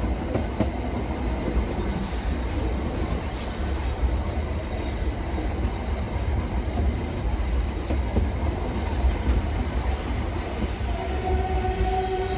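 Narrow-gauge train running along the track: a steady low rumble with wheel clatter on the rails. Near the end a steady horn tone sets in.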